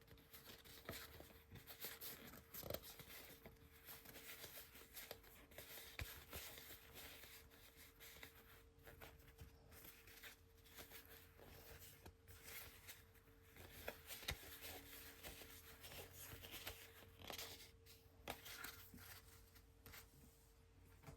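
Faint rustling and light clicks of cardboard trading cards being flipped through by hand, over a faint steady hum.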